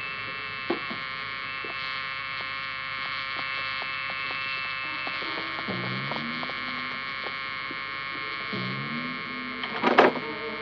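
An electric doorbell buzzer held down without letting go, giving one long, steady, harsh buzz. A sharp clatter comes near the end as the door is opened.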